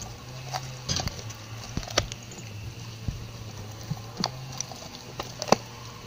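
Dog chewing an ear of corn in its husk, irregular crunches and crackles as the kernels and dry husk break, over a low hum.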